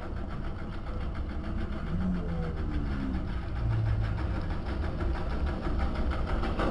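Tractor's diesel engine running steadily with an even chugging pulse.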